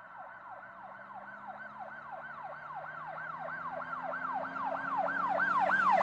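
Electronic yelp siren sweeping up and down in pitch about four times a second, fading in and growing steadily louder.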